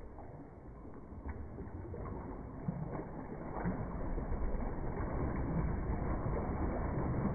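Canoe paddle strokes pulling through the water of a narrow paddling tank, with water sloshing and splashing against the tank walls. It gets louder from about halfway in as the water churns up.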